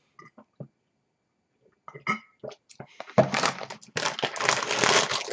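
A few faint swallows, then a plastic drink bottle crackling and crinkling close to the microphone as it is handled, starting about three seconds in and loudest near the end.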